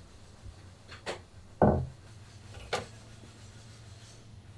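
Wooden countertop hatch lids being lifted open and set down: three short wooden knocks, the middle one, a little under two seconds in, a louder dull thump.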